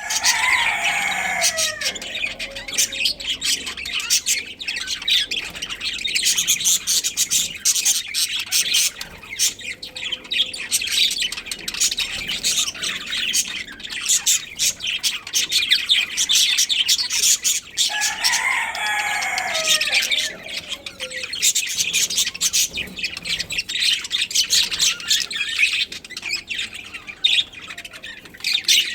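A colony of budgerigars chirping and chattering continuously, a dense mass of quick high chirps. Twice a longer, lower call slides down in pitch over about two seconds, once at the start and again about eighteen seconds in.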